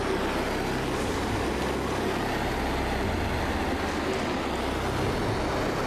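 Handheld gas blowtorch burning with a blue flame, giving a steady rushing noise.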